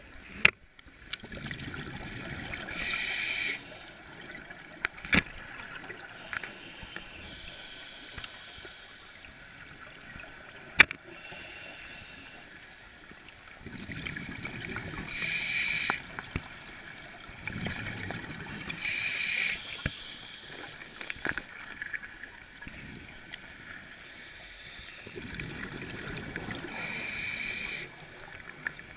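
Scuba diver breathing through a regulator underwater: about four breaths, each a rumbling gush of bubbles together with a hissing rush through the regulator. There are a few sharp clicks between the breaths.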